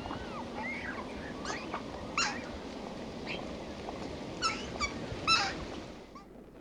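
A juvenile water bird screaming with short, sharp, repeated begging calls, about six of them, the loudest a little past five seconds in, over a steady background hiss.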